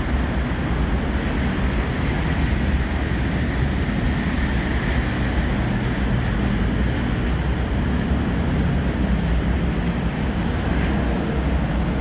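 Steady rumble of road traffic from an elevated highway, an even wash of noise with no single vehicle standing out.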